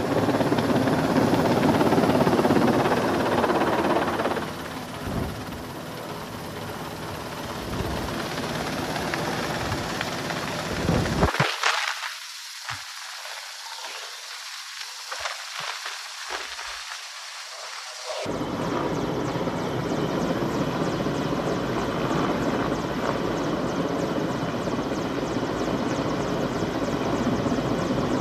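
Firefighting helicopter rotor noise, a steady heavy whirring, with the low end dropping out abruptly for several seconds midway before returning.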